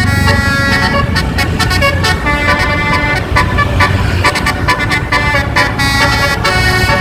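12-note Basuri telolet musical bus horn with roof-mounted trumpets, playing a tune: loud held notes that step from pitch to pitch several times a second, with a low rumble underneath.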